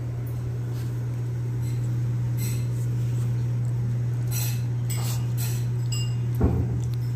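A steady low hum, with scattered light metallic clinks from a small dog's collar tag as the dog moves about, and a soft thump near the end.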